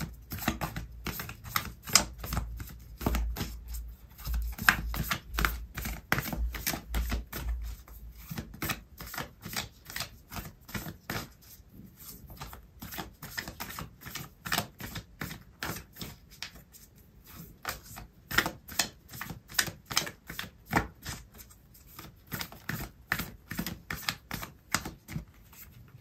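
A deck of oracle cards being shuffled by hand: a long, uneven run of sharp clicks and slaps, several a second, with a few soft low thuds in the first half.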